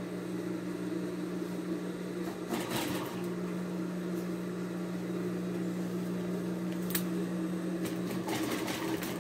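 Electric sewing machine running steadily as broderie anglaise lace is stitched on in small pleats, easing briefly about three seconds in, with a sharp click near seven seconds.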